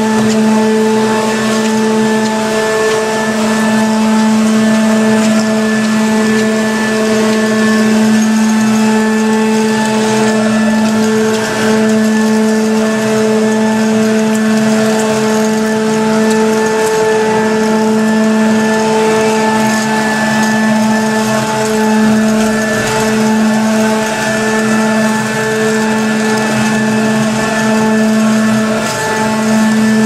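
Amano walk-behind automatic floor scrubber running, a steady motor hum with a whirring hiss as it scrubs and vacuums up the floor through its rear squeegee.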